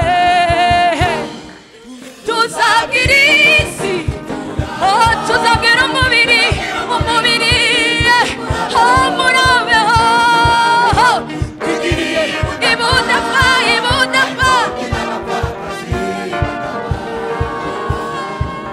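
Kinyarwanda gospel song sung over a backing track with a steady beat. It dips briefly about two seconds in, then continues.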